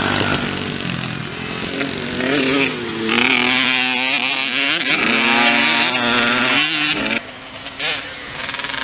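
Small youth motocross bike engines revving hard as riders pass close by one after another, the pitch rising and falling with throttle and gear changes. Loudest in the middle, dropping off about seven seconds in.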